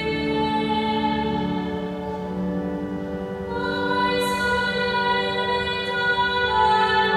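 Choir singing a psalm setting with organ accompaniment, in long held chords; a new, brighter chord comes in about halfway through.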